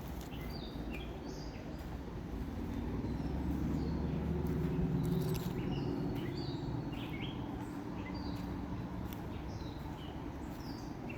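Small birds chirping in short repeated calls, over a low rumble that swells and fades about four to six seconds in.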